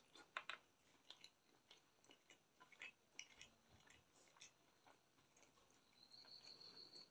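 Faint, close mouth sounds of a person chewing a mouthful of chicken curry and rice with lips closed: soft irregular wet clicks and smacks. A thin high tone sounds for about a second near the end.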